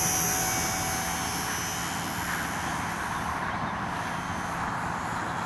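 ParkZone (PKZ) Spitfire RC model's electric motor and propeller whining at full throttle after a hand launch. The high whine fades over the first two or three seconds as the plane flies off, leaving wind noise on the microphone.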